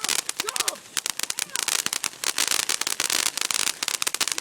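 Ground firework crackling: a dense, irregular run of rapid small pops, with a brief lull about a second in.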